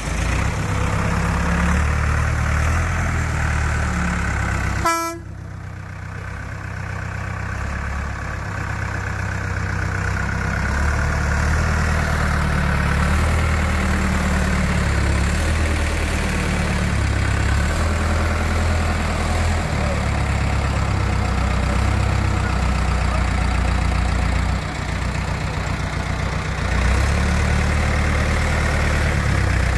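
Diesel engine of a mobile hydraulic crane running steadily as it lifts a load, with a short horn toot about five seconds in.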